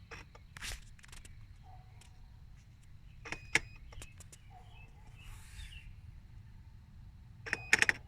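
Irregular mechanical clicking from a 2015.5 Volvo S60 T6 with the engine switched off. A few light clicks come early, then one sharp click, and near the end a quick cluster of the loudest clicks.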